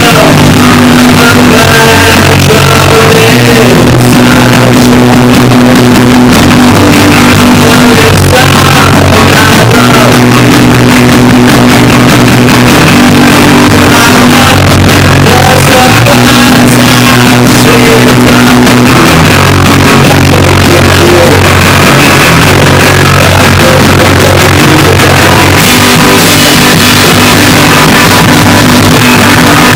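Rock band playing live, recorded loud and distorted with very poor sound quality, with held bass notes that change every couple of seconds under guitar.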